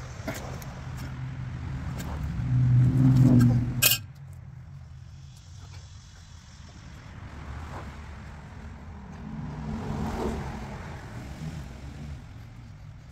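A motor vehicle running past, its engine hum growing louder to a peak about three seconds in and stopping abruptly just before four seconds. A second, quieter vehicle swells and fades around ten seconds in.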